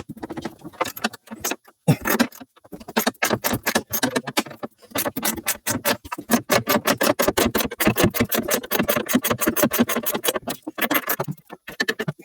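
Rapid metallic clicking and rattling, quickest and densest through the middle of the stretch.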